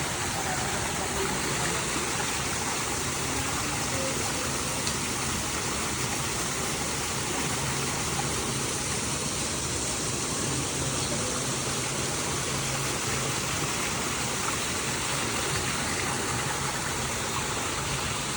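A steady rushing noise that holds an even level throughout, with no distinct events in it.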